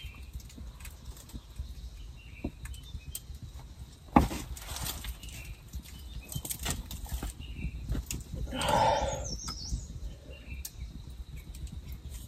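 Small wood campfire crackling, with rustling and handling noises as someone moves beside it. A sharp knock comes about four seconds in, and a louder rustle about nine seconds in.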